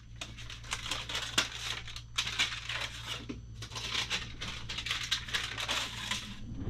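Baking paper crinkling and crackling in irregular bursts as it is peeled off a freshly baked loaf, stopping shortly before the end.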